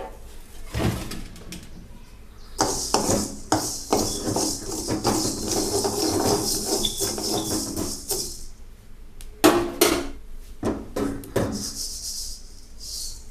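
Coriander seeds and spices dry-roasting in a kadai while being stirred and scraped around the pan. A steady hiss runs from about three seconds in to about eight seconds in and comes back briefly near the end, with a cluster of loud knocks against the pan shortly after the middle.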